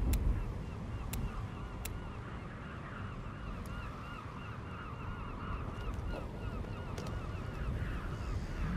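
A flock of geese calling, many short overlapping honks that thicken after the first couple of seconds, over a low wind rumble. A few sharp clicks come in the first two seconds.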